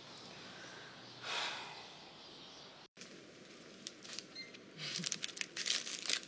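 Quiet room tone with one soft rustle about a second in. In the second half, a run of small crinkles and clicks as plastic packets are handled and passed across a counter.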